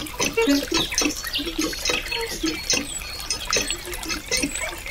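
A thin stream of water trickling and splashing from a miniature hand pump's spout down a small chute into a shallow pond, with many small irregular plops and drips.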